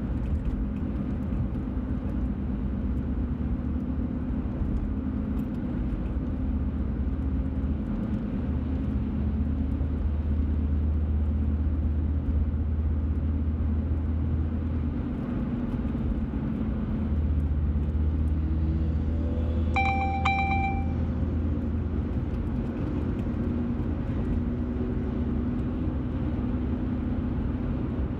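Steady engine and tyre rumble of a moving car, heard from inside the cabin. About twenty seconds in, a brief pitched tone sounds for about a second.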